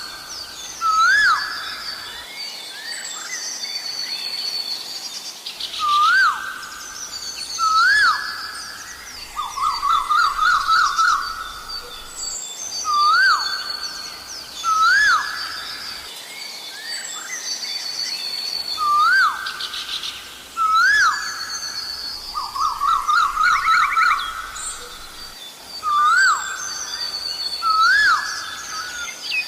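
Asian koel calling: loud rising whistled notes repeated every second or two, with two runs of fast, rapidly repeated notes about a third and three-quarters of the way through. Smaller birds chirp higher and fainter in the background.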